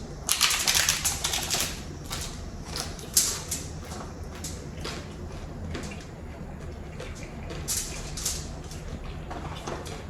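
Crunchy hard taco shells being bitten and chewed close to the microphone: a dense run of sharp crackling crunches in the first second or so, then scattered single crunches.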